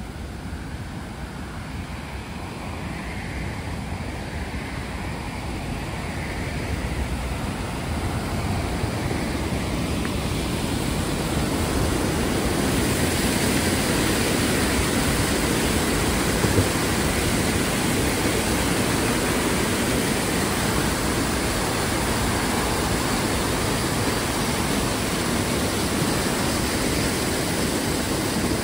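White water rushing and churning out of a stone culvert at a pond outlet, a steady rush of noise. It grows louder over the first ten seconds or so, then holds steady.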